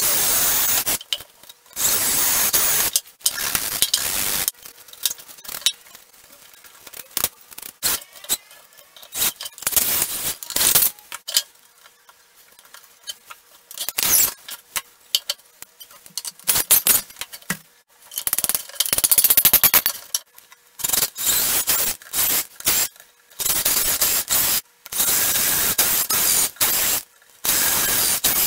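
Cordless drill running in many short bursts with pauses between, boring holes into wooden square timber and driving screws into the wood.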